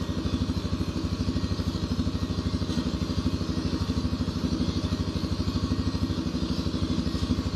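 Quad bike (ATV) engine idling steadily, an even, fast pulse that doesn't change.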